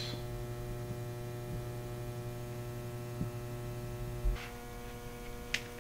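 Steady electrical mains hum, with a soft thump a little after four seconds in and a faint click near the end.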